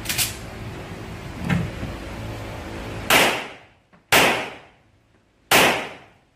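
Three pistol shots from a Rock Island Armory Tac Ultra FS HC, a 1911-style handgun, about three, four and five and a half seconds in, each sharp and trailing off with echo. Two fainter clicks come earlier.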